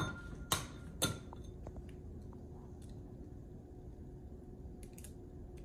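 An egg tapped three times against the rim of a bowl to crack it, sharp knocks about half a second apart, followed by a few faint clicks as the shell is pried open.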